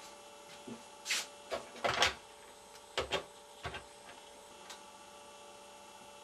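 A few short clacks and rattles as a push-button desk telephone's handset is picked up off its base and handled, over a steady electrical hum.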